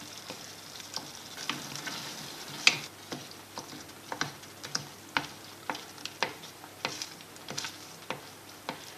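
Wooden spoon mashing and stirring diced tomatoes in a stainless steel saucepan, knocking and scraping against the pan's side in irregular taps about once or twice a second, the loudest near three seconds in. Under it, the soft steady hiss of the tomatoes simmering.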